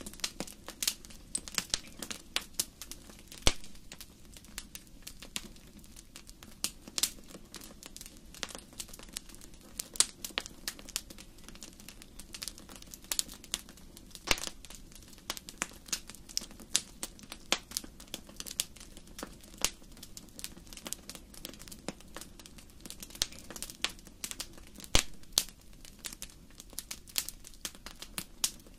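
Wood fire burning in a fireplace, crackling with many irregular sharp pops and snaps over a steady low hiss of the flames.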